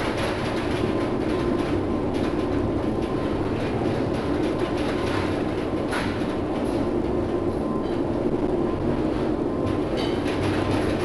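Steady rumbling drone of a container ship under way in heavy seas, heard from inside the bridge, with the sound of wind and waves mixed in.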